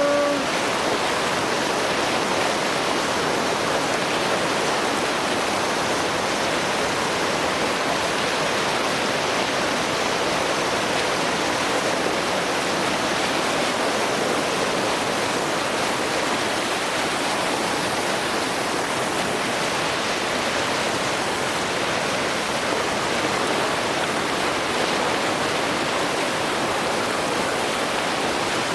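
River Nile waterfall rushing in a steady, unbroken wash of white-water noise.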